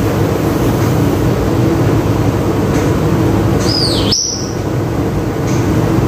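Grey parrot giving one short whistle about four seconds in: it swoops down in pitch and back up, then ends on a brief high note. It sits over a steady, loud rumbling hum.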